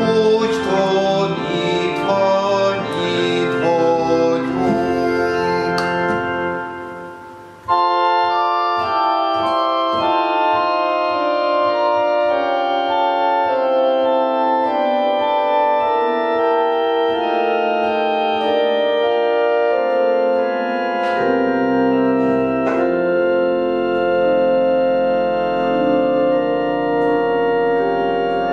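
Organ-accompanied hymn singing fades out. About eight seconds in, a two-manual organ starts playing slow held chords, and deep pedal bass notes join about two-thirds of the way through.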